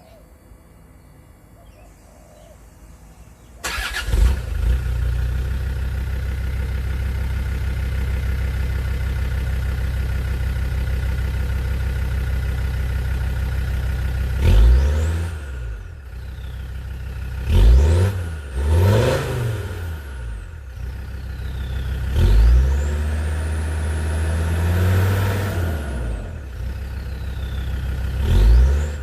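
Land Rover Discovery 2's Td5 five-cylinder turbodiesel starting about three and a half seconds in and idling steadily, then free-revved several times with one longer held rev. A high turbo whistle rises and falls with each rev.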